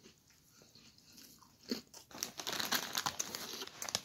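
Crunchy puffed corn snack balls being chewed, then a Cheetos Bolitas foil snack bag crinkling as it is picked up and handled close to the microphone. The dense crinkling from about two seconds in is the loudest part.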